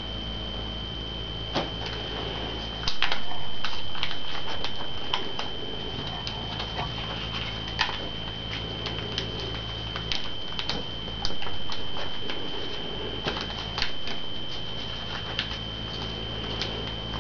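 Paper being folded and creased by hand: irregular small crackles and taps. Under them runs a steady high whine and a low hum.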